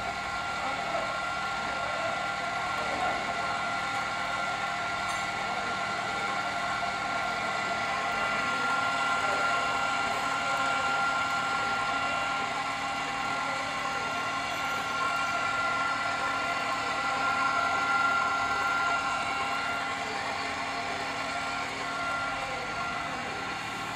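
Electric bar and pipe threading machine running, cutting a thread on a steel rod through its die head; the motor and gear drive give a steady, even whine.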